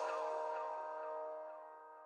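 Background music fading out: a held chord of several sustained notes rings on and dies away.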